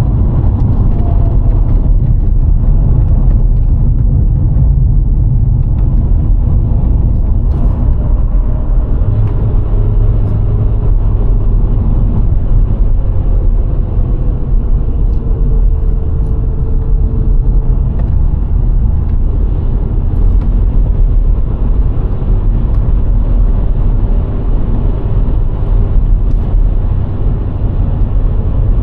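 VW Golf IV 1.6 driving on the road: a steady low rumble of engine, tyre and wind noise. A faint tone shifts slightly in pitch midway.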